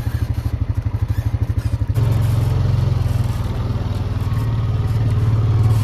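ATV engine running as the quad rides along a dirt road, with a fast, even pulsing. About two seconds in the engine gets louder as the throttle opens, and it holds there.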